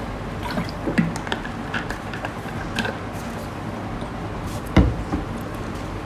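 Scattered soft clicks and taps over a steady background hiss, with one louder knock about five seconds in.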